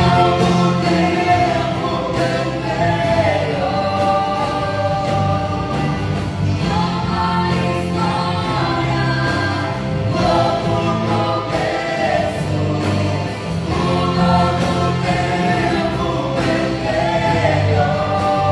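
A gospel worship song sung by a group of voices, choir-style, over sustained accompaniment.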